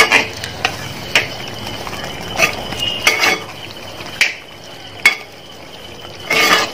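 A spoon stirring thick lemon pickle as it boils in a steel pot, clicking and scraping against the pot about once a second over a steady bubbling simmer, with a longer scrape near the end.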